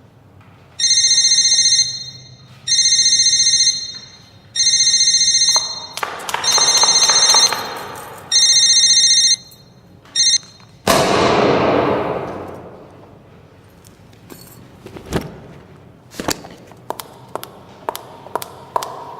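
Mobile phone ringtone ringing in one-second electronic bursts, five times over, with a brief sixth cut short. A loud noisy burst follows about 11 seconds in and fades over a couple of seconds. From about 16 seconds, high-heeled shoes click in steady footsteps.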